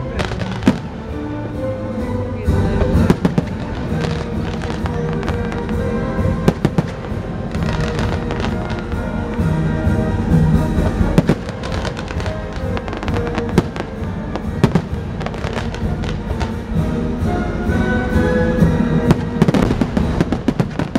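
Fireworks display going off in rapid succession, with many sharp bangs throughout, over loud music playing.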